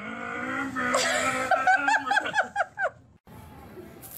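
A person laughing: a drawn-out vocal sound that breaks into a quick run of bursts, about five a second. It cuts off abruptly about three seconds in.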